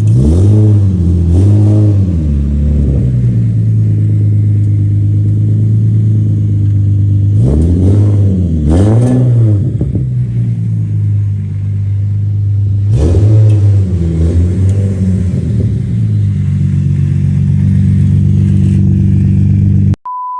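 Infiniti G37's 3.7-litre V6 idling through an ISR aftermarket exhaust and revved in quick blips: twice near the start, twice about eight seconds in, and once or twice around thirteen seconds, dropping back to a steady idle in between. A short, steady beep-like tone sounds at the very end.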